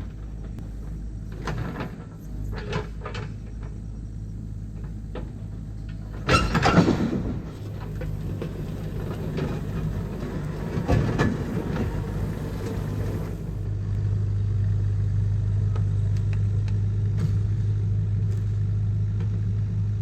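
An engine running steadily, with knocks and clanks over it and one loud scraping burst about six seconds in. The engine's hum grows stronger about fourteen seconds in.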